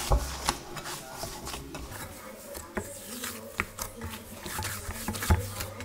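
Hands kneading a soft glutinous-rice-flour and potato dough in a glass bowl: rubbing and squashing with scattered light knocks against the bowl, the loudest one near the end.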